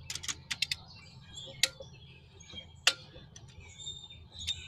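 Sharp metallic clicks of a ratchet wrench angle-tightening the cylinder head bolts on an aluminum head: a quick run of about five clicks at the start, then single clicks spread a second or more apart.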